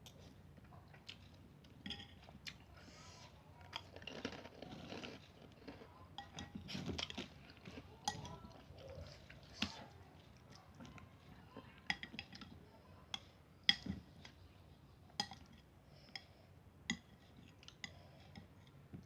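A person eating seblak: chewing, with sharp clinks of cutlery against the bowl every second or so.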